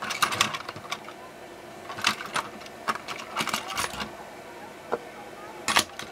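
Plastic Plarail toy train cars clicking and clattering as they are handled and fitted together at the couplers, in several short bursts of clicks.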